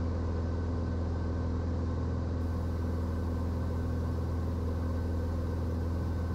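Cirrus SR20 G6's four-cylinder Lycoming IO-390 engine and propeller droning steadily in flight, heard inside the cabin: a constant deep hum with a stack of even steady tones above it.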